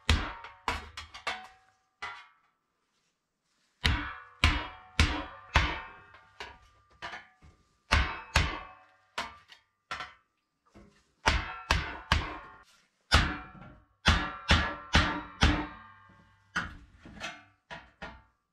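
Hammer blows with a ringing tone, struck in quick runs of several strokes, about two a second, with short breaks between the runs.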